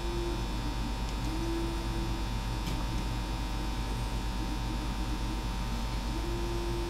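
Steady electrical mains hum, with a higher hum tone that comes and goes every second or two and a couple of faint clicks.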